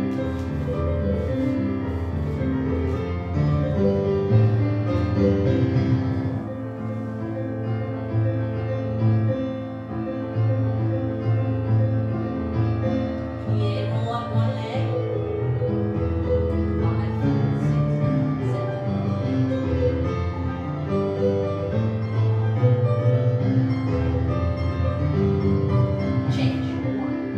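Solo piano playing a classical-style ballet class accompaniment in a steady, even rhythm.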